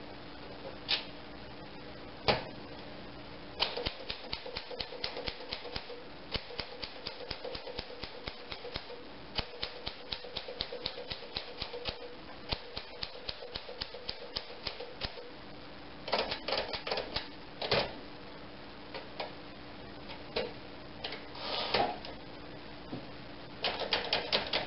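1950s Smith Corona Sterling portable manual typewriter being typed on: a steady run of quick key strikes for about twelve seconds, then short bunches of clacks and a few single louder strikes.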